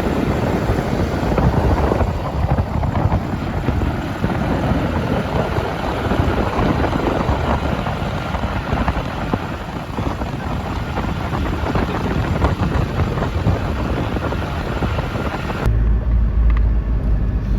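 Wind rushing over the microphone together with the road noise of a moving vehicle. Near the end, it cuts suddenly to a deeper, steadier rumble.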